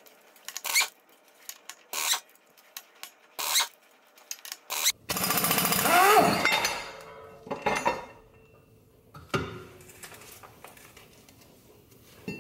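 Impact wrench hammering out the flywheel bolts of a 4G63 engine in short rattling bursts, with one longer run of about two seconds about five seconds in, its pitch bending as the bolt turns. Sharp metallic clicks come in between.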